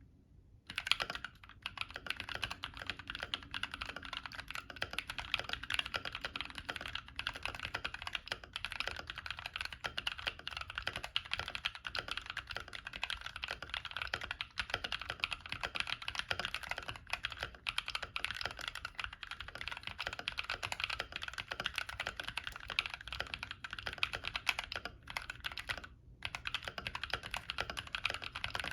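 Continuous fast typing on a Womier K66 mechanical keyboard with Zenclack Pleiades linear switches and ASA profile keycaps: a dense run of key clacks that starts about a second in, with a brief pause near the end.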